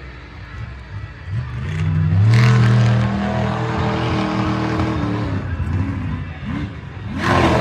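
Monster truck engine revving hard in repeated surges, its pitch climbing and falling, loudest about two seconds in. A brief loud burst of noise comes near the end.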